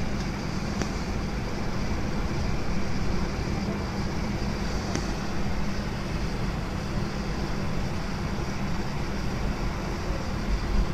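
Airliner cabin noise heard from inside the plane as it moves along the runway: steady engine noise and low rumble with a constant hum.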